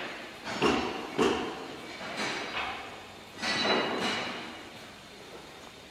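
A series of sharp bangs and knocks, four or five of them roughly a second apart, each ringing on with echo as in a large hall; the loudest comes about three and a half seconds in.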